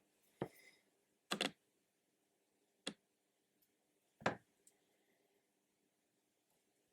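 Sharp clicks and taps of small hand tools being handled during soldering work on a LiPo battery's balance lead: four of them, the second a quick double, the last and the double the loudest.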